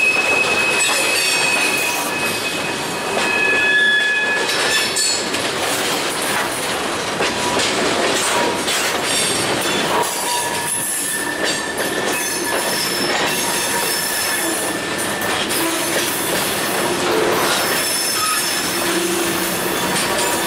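A freight train's cars (tank cars, a covered hopper, boxcars) rolling past close by, a steady loud rumble and clatter of steel wheels on rail. Thin high wheel squeals come and go throughout as the cars take the curve through the junction.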